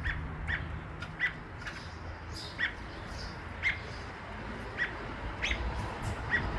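Robin giving a string of short, sharp chirps, roughly one every half second to a second.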